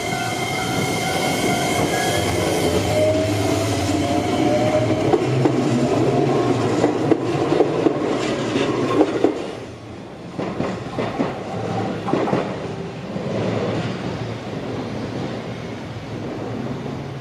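Shizuoka Railway A3000 series electric train running over a level crossing. It starts loud with a whine that rises in pitch. The noise drops sharply about halfway through, then wheels click over the rail joints and the sound fades away. Steady ringing tones from the crossing's warning bell die out in the first couple of seconds.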